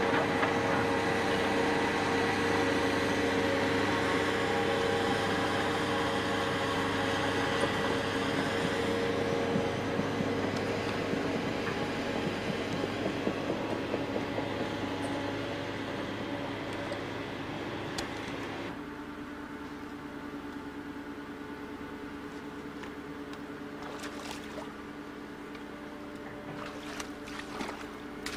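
An engine running steadily, a hum with several fixed pitches that drops in level about two-thirds of the way through, with a few sharp clicks and knocks near the end.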